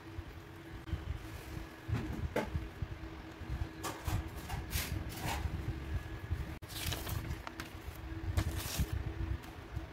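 Felt-tip markers scratching in short strokes on notebook paper, with paper being handled, over a faint steady hum.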